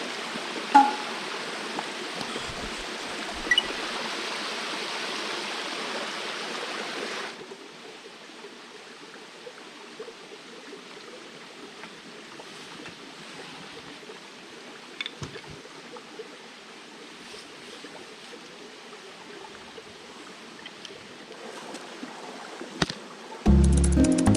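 Stream water running steadily over rocks and ice, an even rushing that drops suddenly to a quieter level about seven seconds in. Two short sharp knocks stand out in the first four seconds, and music comes in right at the end.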